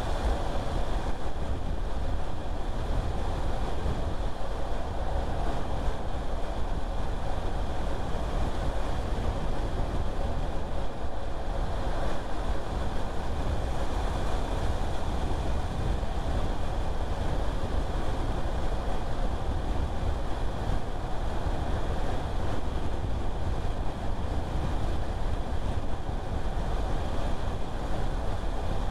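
A car driving along a road: a steady mix of tyre, engine and road noise, with no separate events.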